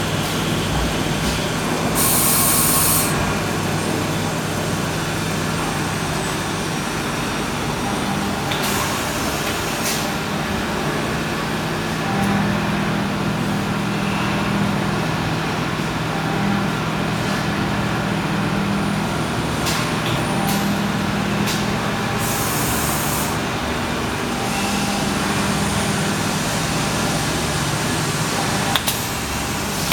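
Citizen Cincom K16 CNC sliding head lathe running, a steady machine hum whose pitched tones switch on and off in steps. Short hissing bursts cut in several times, two of them lasting about a second.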